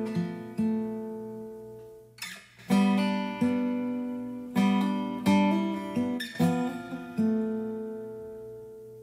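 Background music: an acoustic guitar strumming chords, each chord left to ring and fade before the next.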